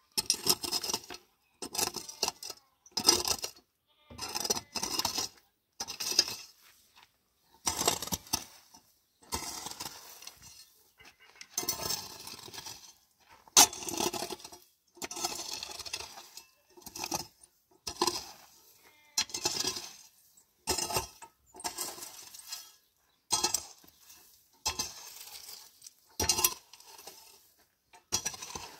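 Hard objects clinking and clattering in short, irregular bursts about a second apart, with near-silent gaps between.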